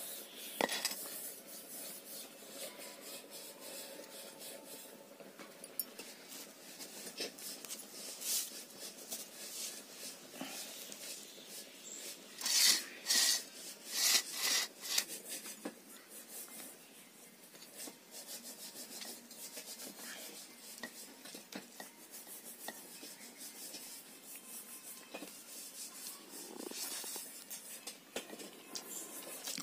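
Rice and curry being handled on a steel plate: soft rubbing and scraping of hands in rice, with scattered clicks of steel dishes. A few louder noisy bursts come about twelve to fifteen seconds in.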